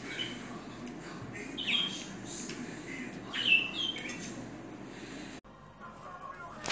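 Pet birds in a cage chirping noisily, with sharp falling calls about two and three and a half seconds in. The sound stops abruptly about five seconds in.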